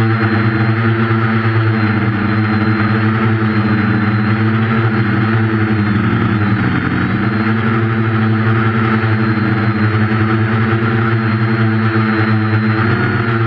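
Quadcopter's four 1200kv brushless motors with 8.5-inch propellers, running in flight as heard from the GoPro mounted on the craft: a steady multi-tone hum whose pitch wavers and dips briefly about halfway through before recovering.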